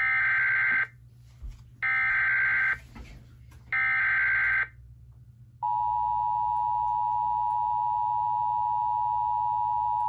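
TFT EAS 911 encoder/decoder sending an Emergency Alert System relay: three bursts of SAME header data tones, each just under a second long, then about a second's pause and the steady two-tone EAS attention signal, starting a little past halfway.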